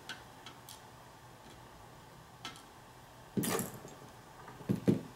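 Small metallic clicks and ticks from handling the pins and tools of a disassembled lock cylinder, with a short scraping noise past the middle and a quick run of sharp taps starting near the end.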